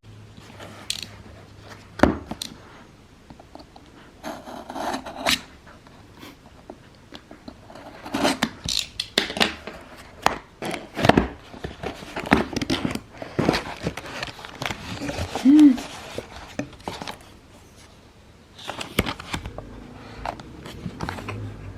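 Close-up handling noises: an irregular series of clicks, taps, scrapes and rustles, like packaging or tableware being handled and cut, with quieter gaps between the busier stretches.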